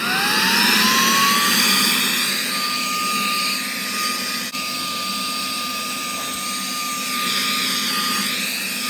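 Saker 3-in-1 handheld vacuum running in air blower mode with the short blowing nozzle: its motor whines up in pitch over the first couple of seconds, then holds a steady high whine over the rush of blown air.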